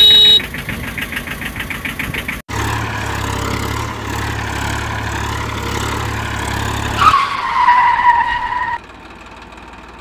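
Vehicle engine sounds in two parts split by an abrupt cut: a brief loud tone and a pulsing engine run, then a steady engine run. About seven seconds in comes a loud, slightly falling squeal, like a tyre skid, lasting under two seconds, after which a quieter steady sound remains.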